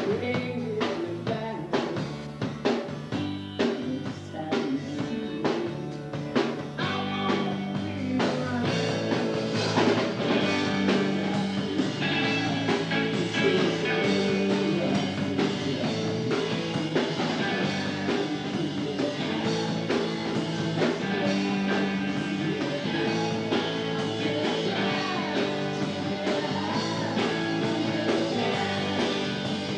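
Rock band music playing. Drum hits stand out in the first several seconds, then the full band comes in with guitars and held chords.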